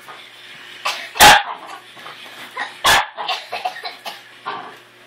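Miniature pinscher barking in short sharp outbursts at a toy puppy: the loudest bark about a second in, another about three seconds in, with smaller yaps between.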